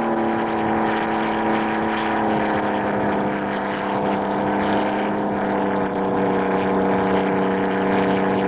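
Packard Merlin V-12 engine of a P-51 Mustang running at high power on a ground run-up, propeller turning: a loud, steady drone that sags slightly in pitch over the first few seconds, then holds.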